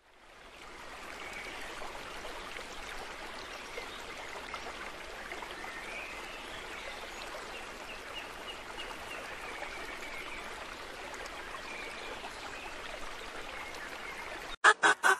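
Steady, even rushing like a flowing stream, fading in over the first second, with faint high chirps that wander up and down.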